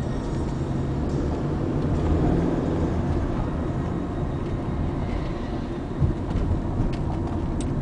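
Inside a Honda Accord cruising at about 40 km/h with the engine near 1,000 rpm: a steady low rumble of engine and road noise. There is a short knock about six seconds in.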